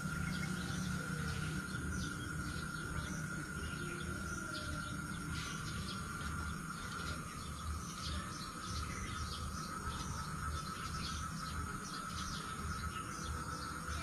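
Natural ambience: an insect drone holding one steady high pitch, with many quick, thin bird chirps over it and a low rumble beneath.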